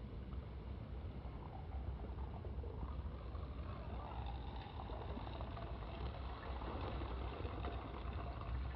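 A boat's engine running with a steady low rumble and a noisy hiss over it.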